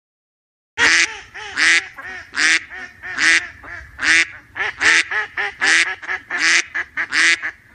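Domestic ducks quacking: a run of loud, short quacks, about two a second, starting about a second in.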